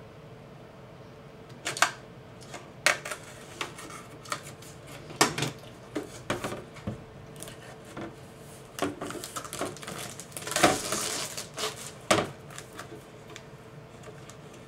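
Plastic wrapping being cut and pulled off a clear hard-plastic laptop shell case: irregular sharp clicks and crinkles of the rigid plastic being handled, with a longer rustle about ten and a half seconds in.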